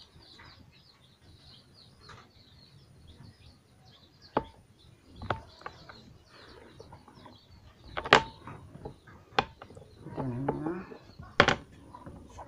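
Small glass vaccine vials and a plastic syringe clicking and knocking as they are set down and handled on a tiled floor: about five sharp clicks, the loudest about eight and eleven seconds in. Faint high bird chirping sits in the background during the first few seconds.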